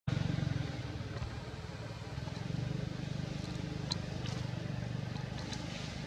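A small engine running steadily, a low hum throughout, with a few faint short high chirps in the second half.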